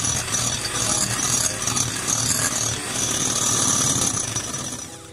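Electric hand mixer beating eggs to a froth in a glass bowl, its motor and beaters running steadily, then fading out near the end.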